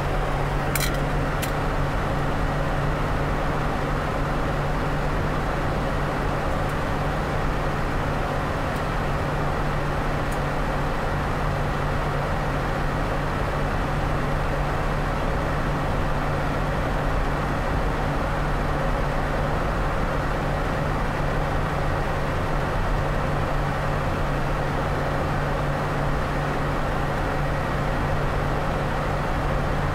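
Steady drone of a running vehicle, with a low steady hum under an even wash of noise.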